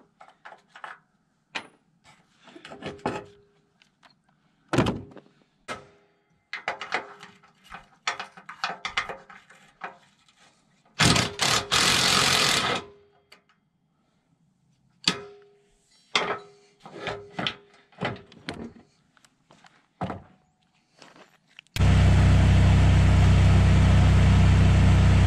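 Cordless drill spinning roller bolts out of a steel mower deck in short bursts, with knocks of metal between them. About 22 seconds in, a plasma cutter starts with a loud steady hiss and hum as it cuts into the deck.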